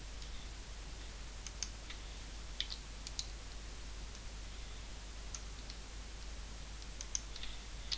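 Faint, sparse computer mouse clicks and keyboard key presses, a few scattered clicks every second or so, over a steady low hiss and hum.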